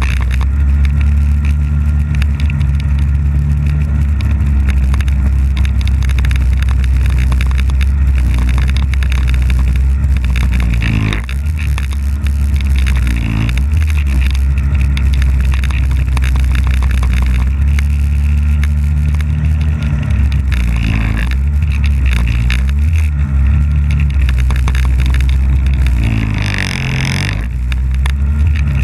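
Polaris snowmobile engine running under way, steady for long stretches, its pitch dipping and rising again several times as the throttle is eased and reopened.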